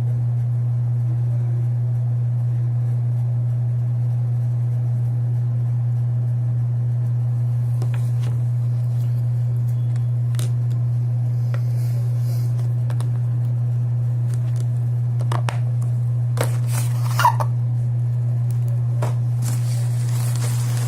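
A steady low hum with scattered clicks, rustles and scrapes of small items and packaging being handled. The handling sounds start about eight seconds in and are busiest near the end, with one sharper click.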